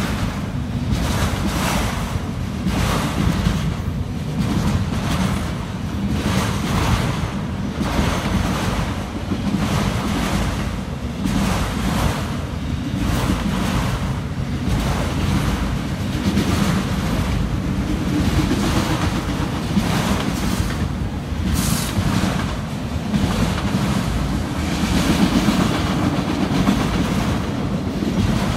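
Freight train of autorack cars rolling past at steady speed: a continuous low rumble with a faint clatter repeating about once a second, mixed with wind on the microphone. A brief high squeak about three quarters of the way through.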